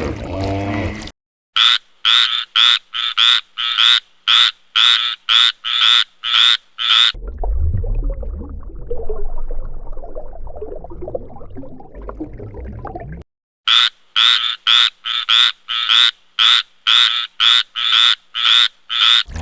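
An animal calling in a steady series of short, high calls, about three a second. The calls come in two runs, with a stretch of low, rumbling noise between them.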